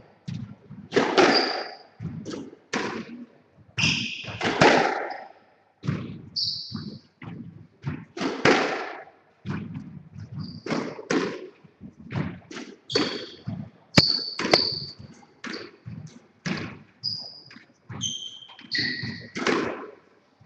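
Squash rally: the ball cracks off rackets and walls about once a second, with the players' shoes squeaking sharply on the wooden court floor between shots.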